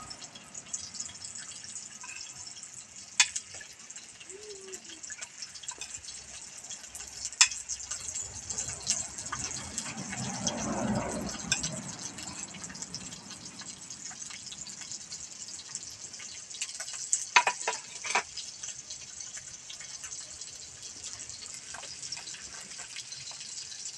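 Small fish frying in oil in a wok, a steady sizzle with a few sharp pops.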